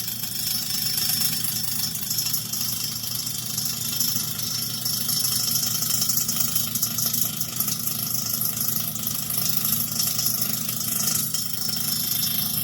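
Toshiba air fryer microwave combo running in convection cooking mode: a steady low hum under a loud, high-pitched hiss.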